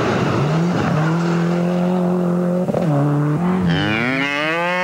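Subaru Impreza rally car's engine held at steady revs, then a cow moos loudly from about three and a half seconds in: one long call rising and then falling in pitch.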